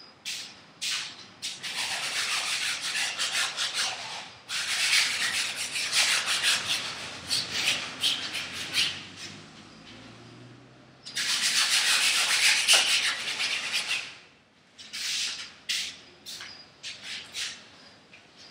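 Paintbrush scrubbing paint onto a large canvas, a rough scratchy rubbing that comes in stretches of a few seconds with a short pause between them, then a few short separate strokes near the end.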